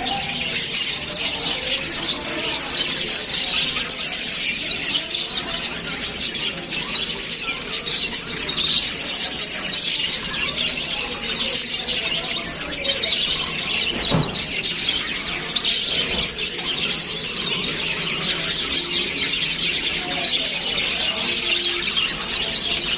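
Lovebirds chattering with a continuous stream of shrill squeaks and chirps.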